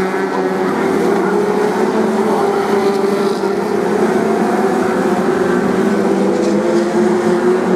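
BriSCA F2 stock car engines running as several cars race round the oval: a steady mix of engine notes that rise and fall slowly in pitch.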